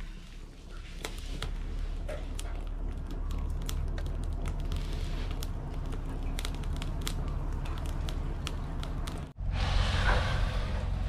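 Burning charcoal crackling in a clay bucket stove, with scattered sharp snaps over a low steady hum. About nine seconds in it cuts off abruptly and gives way to a louder hiss-like noise.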